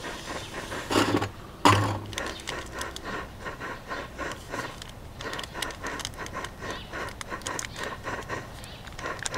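Optimus 123R Svea brass petrol stove running under a lidded pot, with a rapid, irregular pulsing: tank pressure is staying low because the tank was overfilled. Two knocks about a second and two seconds in, as a metal mug is set down on the table.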